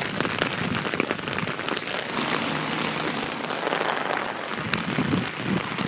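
Rain falling on an umbrella held overhead: a dense, steady spatter of drops.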